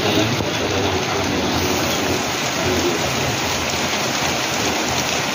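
Heavy rain pouring down, a steady loud hiss.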